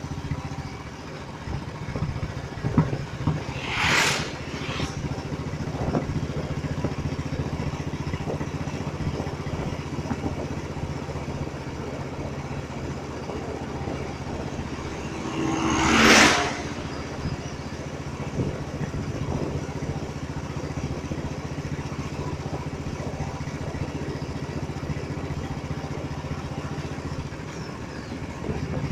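Royal Enfield single-cylinder motorcycle engine running steadily under way, a low even thump with wind rushing over the microphone. A vehicle rushes past about 4 s in, and a louder, longer rush about 16 s in as an oncoming truck goes by.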